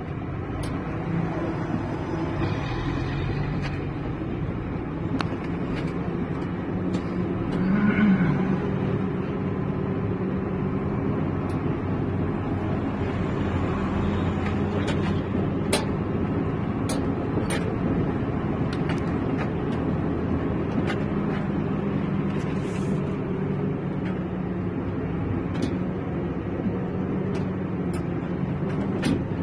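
Engine of a vehicle running steadily as it drives slowly over a broken, potholed road, with scattered knocks and rattles from the bumps. A brief louder sound with a rising pitch comes about eight seconds in.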